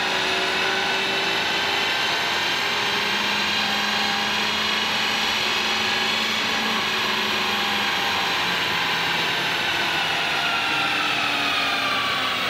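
2022 Honda Civic Si's 1.5-litre turbocharged four-cylinder running on a chassis dyno: its whine slowly rises in pitch, holds, then falls away over the last few seconds. A large cooling fan blows steadily underneath.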